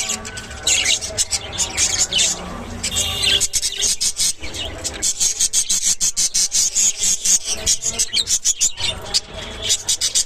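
Budgerigars chirping and chattering: a busy, rapid stream of short, high chirps and clicks with no pause.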